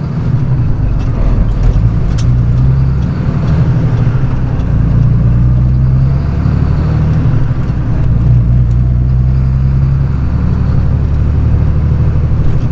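Straight truck's engine droning inside the cab as it drives through town, its pitch stepping up and down several times as it changes speed.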